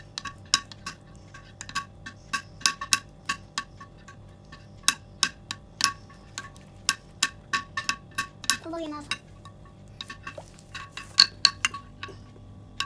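Metal spoon stirring cocoa and melted butter in a glass baking dish, clinking sharply against the glass a few times a second, each clink with a short ring.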